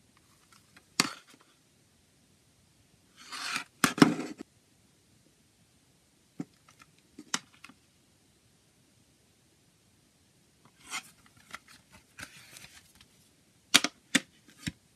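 Plastic CD jewel case being handled on a table, turned over and opened: hands rubbing and sliding on the case, broken by sharp plastic clicks. The loudest clicks come in a quick cluster near the end.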